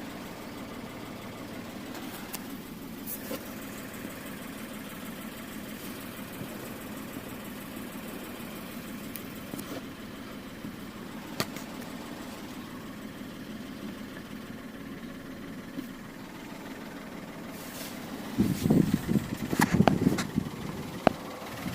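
Citroën C3 III's 1.2-litre three-cylinder petrol engine, set up to run on LPG, idling steadily. Near the end a flurry of loud, irregular low thumps cuts in for about two seconds.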